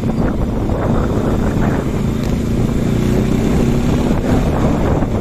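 Motorcycle engine running steadily on the move, with wind rushing over the microphone.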